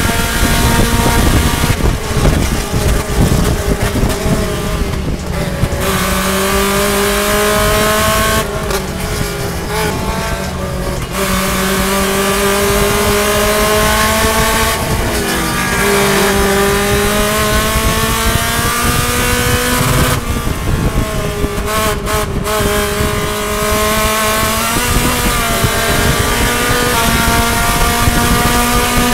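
In-car sound of a Mazda MX-5 race car's four-cylinder engine running hard near its rev limit, its pitch dropping under braking and downshifts and climbing again as it accelerates, several times over. Wind and road noise run underneath.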